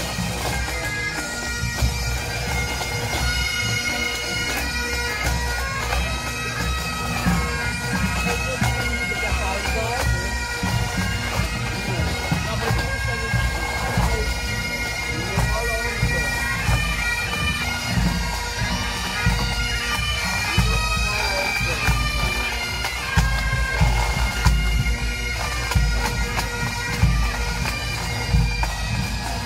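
Pipe bands playing Great Highland bagpipes with drums: steady drones under the chanter melody, with regular bass drum beats beneath.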